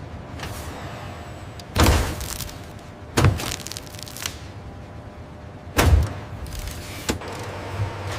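Heavy industrial machinery: three loud thuds, about a second and a half and then two and a half seconds apart, with a couple of smaller knocks near the end, over a steady factory hum.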